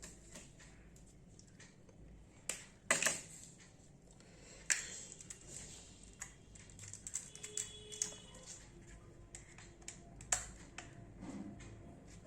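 Scattered small clicks and taps of hands working a wire onto the line terminal of a switchboard indicator lamp. A few louder clicks stand out, about three seconds in, near five seconds, and about ten seconds in.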